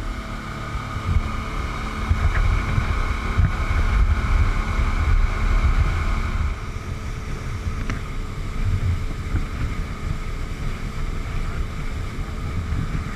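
A boat's outboard motors running steadily, with wind buffeting the microphone.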